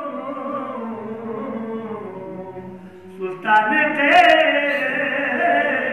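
Unaccompanied male chanting of a Balti qasida, a devotional poem, in long held, gliding phrases: one phrase trails off, and after a brief pause a louder phrase begins about three and a half seconds in.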